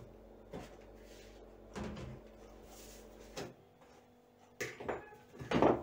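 Kitchen handling noises: several separate knocks and clatters of cookware and utensils, the loudest near the end, over a low steady hum that stops about three and a half seconds in.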